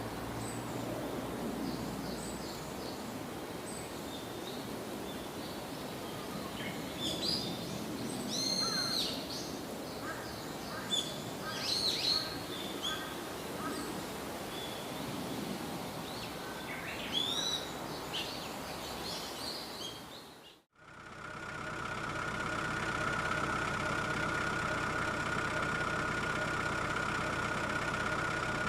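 Open-air ambience with several birds giving short chirping calls, then, after a sudden cut about twenty seconds in, a vehicle engine idling steadily with a held whine.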